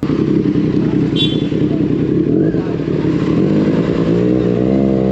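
Motorcycle engine running on the move, with wind and road noise; its engine note grows clearer and steadier near the end. A short high-pitched tone sounds about a second in.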